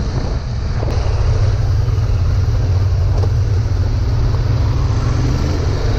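Royal Enfield Continental GT 650, a 648 cc parallel twin, being ridden: steady engine and road noise with heavy wind rumble on the microphone.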